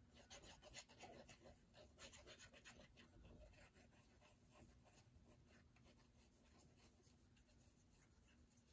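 Very faint scratching and small clicks as the fine metal tip of a squeeze bottle of liquid glue is drawn across a paper cutout, laying down glue. Most of it comes in the first three seconds, fainter after.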